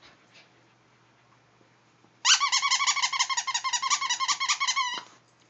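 Plush squirrel toy's squeaker squeezed in a puppy's mouth: a loud, rapidly warbling squeak lasting nearly three seconds, starting about two seconds in and dropping in pitch as it ends.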